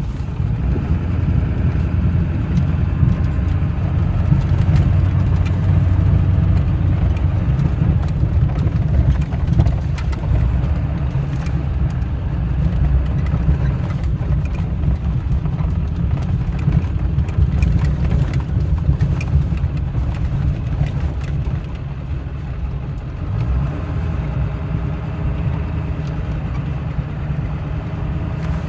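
Steady low rumble of a motor vehicle's engine running, with a few faint knocks, easing slightly about three-quarters of the way through.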